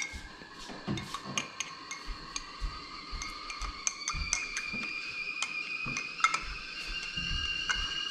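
A metal spoon clinking irregularly against a glass as chocolate milk is stirred, over a steady high whistling tone that steps up in pitch about four seconds in and again about six seconds in.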